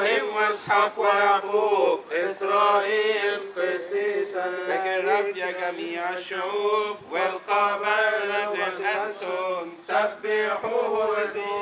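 Coptic Orthodox liturgical chant: male voices singing a prayer in long held notes that waver up and down.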